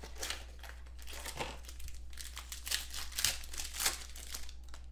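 Clear plastic shrink-wrap on a trading card box crinkling as hands tear it off and crumple it, in irregular bursts that are loudest about three to four seconds in.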